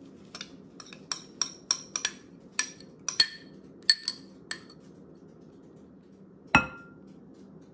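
Small glass bowl clinking, about a dozen quick taps with a bright ring as spice paste is knocked out of it onto chicken in a large glass mixing bowl, then one louder knock near the end.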